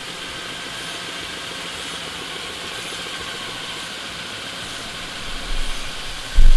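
Home-built LEGO air compressor running steadily, its motor-driven pneumatic pumps giving a steady mechanical whir with hiss. Low thumps come in near the end.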